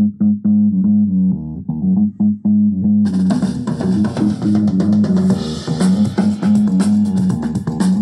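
Band music with bass guitar, guitar and drums played through a Handz Urban Pro portable speaker. For the first three seconds only a pulsing bass line and plucked notes are heard; then the full mix with drums and bright treble comes in.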